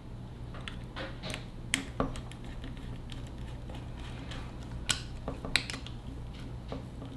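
Small screwdriver driving a grip screw into a replica blaster's grip, giving scattered light metal clicks and ticks, a few in quick succession, over a steady low hum.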